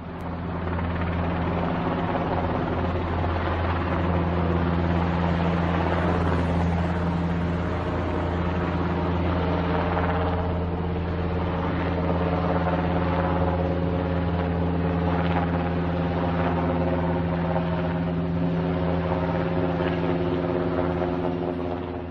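Helicopter flying close overhead: a steady, even drone from its rotors and engine, with a constant low hum.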